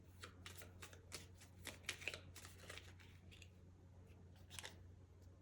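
Faint flicks and taps of tarot cards being handled and laid out: a quick run of soft clicks over the first three seconds, then one more about a second before the end.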